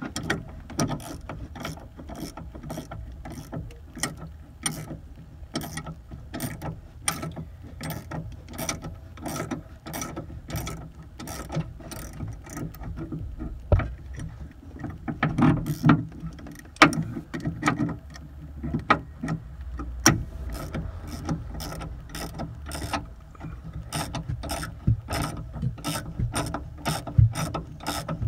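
Ratcheting wrench clicking steadily, about two clicks a second, as the nut on top of a rear shock absorber's shaft is undone while locking pliers hold the shaft.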